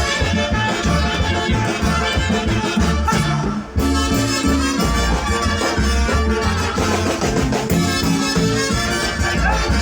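Ecuadorian dance orchestra playing live, an instrumental passage with brass over a steady bass beat, breaking off briefly a little over three seconds in.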